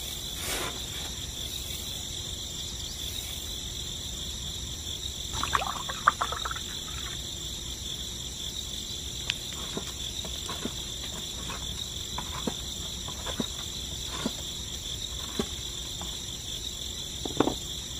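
Steady high-pitched chorus of crickets, with scattered small clicks and knocks, the loudest about six seconds in and near the end.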